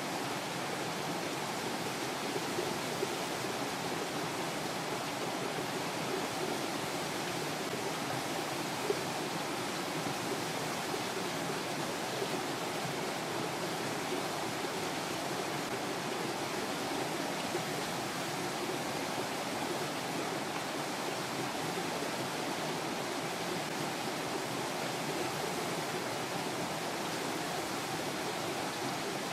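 Steady, even rushing noise with no change throughout, and a slight tick about nine seconds in.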